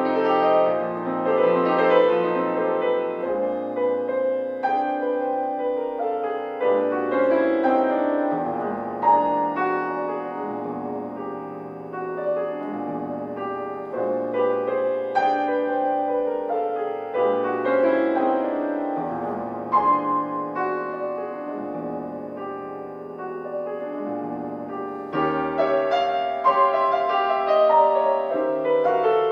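Solo grand piano playing classical music, many notes in quick, shifting runs. It is softer through the middle and grows louder again near the end.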